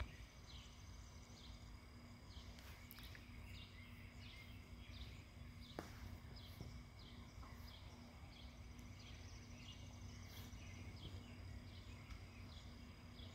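Faint outdoor ambience: a short, high chirp falling in pitch, repeated about twice a second, over a steady high hum.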